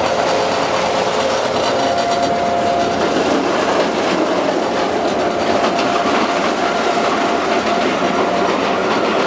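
Diesel locomotive running, heard inside the driver's cab: a loud, steady mechanical din with a faint whine in it.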